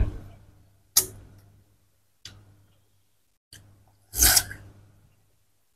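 A person biting and chewing watermelon close to the microphone: a handful of separate crisp, wet crunches, the loudest and longest about four seconds in.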